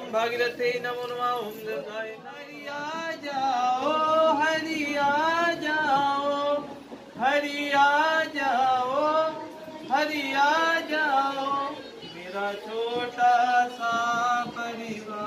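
A man's voice chanting Hindu mantras in a sing-song melody during a puja, with long held notes that glide in pitch and brief pauses for breath.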